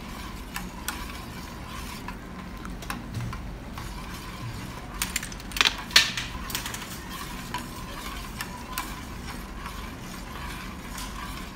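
Metal spoon stirring and scraping against a stainless steel pan of hot milk just split with lemon juice into curds and whey, with irregular clinks, the loudest about six seconds in.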